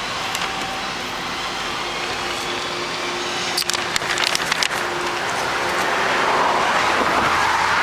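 Passing road traffic: a car's tyre and engine noise, swelling as it comes closer toward the end, with a few brief clicks about four seconds in.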